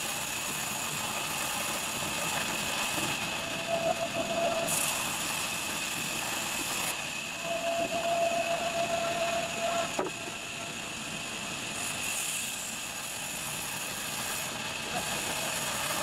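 Large vertical band saw running with a steady high whine while its blade cuts lengthwise through a log being pushed along the table.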